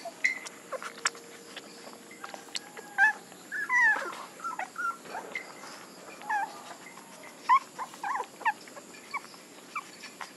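Nursing puppies giving short, high squeaks and whimpers, scattered irregularly, with a cluster of quick squeals about three to four seconds in and another run of squeaks around eight seconds.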